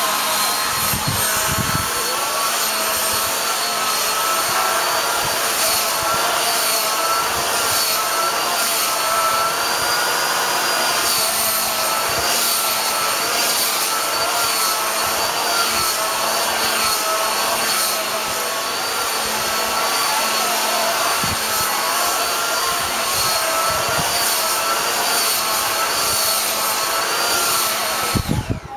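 Handheld hair dryer running steadily, a whining motor over a rush of air, switched off just before the end.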